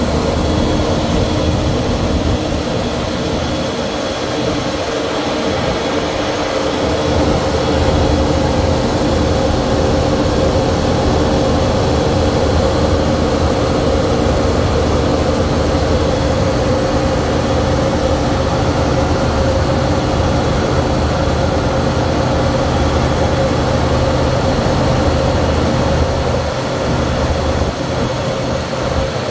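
Cockpit noise of a KC-135R Stratotanker: a steady drone of its CFM56 (F108) turbofan engines mixed with air rush. A steady mid-pitched hum sits over a low rumble.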